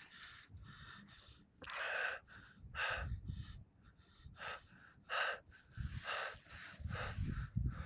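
A person breathing heavily close to the microphone, with short, loud breaths about once a second, over a low rumble of handling noise.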